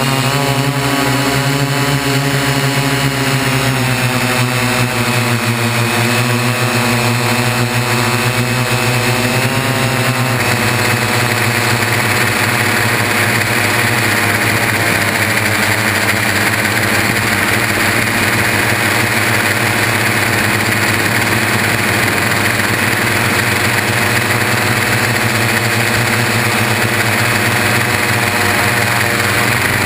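The six brushless motors and propellers of a Y6 coaxial multirotor running in flight, a steady buzzing whine heard close up from a camera hardmounted to the landing gear. About ten seconds in, the even pitched tone gives way to a rougher, noisier sound.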